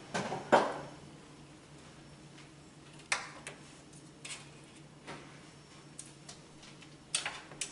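A few light clicks and clinks of a plate and utensils being handled on a kitchen counter: two right at the start, one about three seconds in and a quick cluster near the end, over a faint steady hum.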